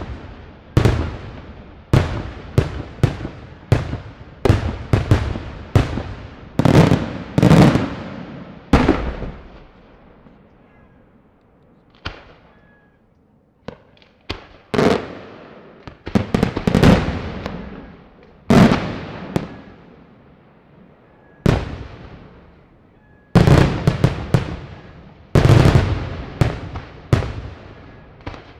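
Daytime fireworks: aerial shells bursting overhead in loud bangs, each trailing off with an echo. Rapid salvos come in the first several seconds and again near the end, with only a few scattered bangs in a lull in the middle.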